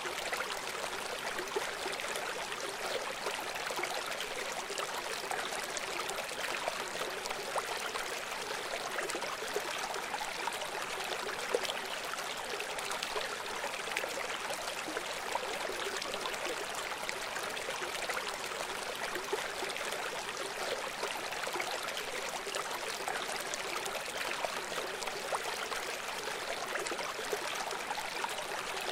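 River water flowing: a steady, unbroken rushing babble with fine splashing throughout.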